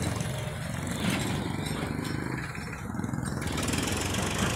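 Road traffic: motor vehicle engines running close by, a steady low engine noise.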